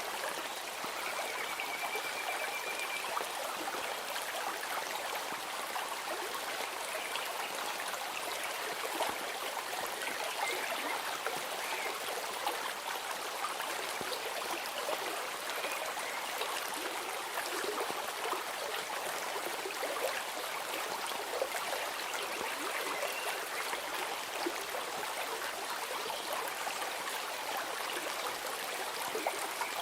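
Flowing stream: a steady babble of running water with small trickles and gurgles. A faint, short high trill comes in about a second in.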